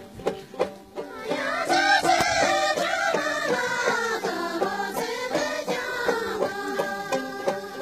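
Folk dance music: a plucked string instrument keeps a steady rhythm, and about a second in a group of women's voices joins in, singing a melody over it.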